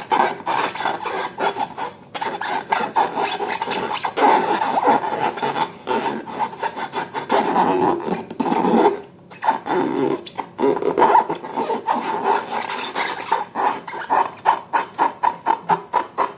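Slime being squeezed and worked by hand, with sticky, crackly clicking and popping. Near the end it turns into regular squishes, about three a second.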